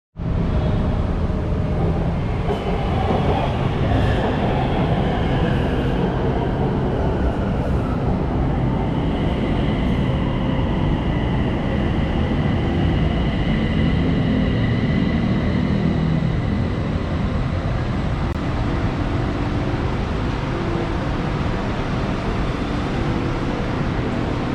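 Bangkok BTS Skytrain electric train pulling into a station: a steady rumble with a motor whine that falls in pitch during the first several seconds as the train slows, then holds steadier.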